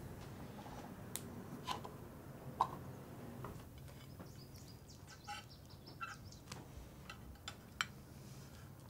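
Quiet tableware sounds at a meal: a few light clicks and knocks of a knife against dishes, scattered irregularly over a faint room hiss.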